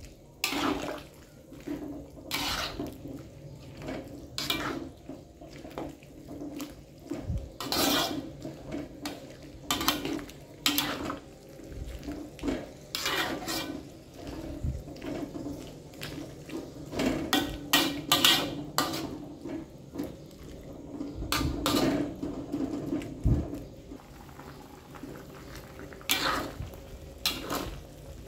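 Metal ladle stirring a soupy chicken and cabbage stew in a wok: irregular scrapes and clinks against the pan, with wet sloshing of the broth.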